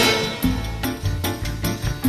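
Instrumental background music: a quick run of sharply struck notes over sustained tones.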